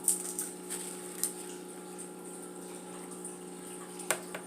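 Wet clicks and smacks of seafood boil being eaten by hand, shells handled and food chewed: several sharp ones in the first second and two more near the end, over a steady background hum.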